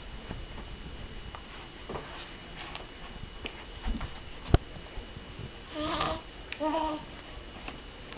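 A baby babbling: two short cooing vocalisations about a second apart, late on. A sharp click comes shortly before them.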